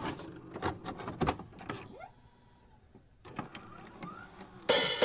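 Digital glitch sound effects: scattered sharp clicks and short rising whirs, then a loud burst of static near the end.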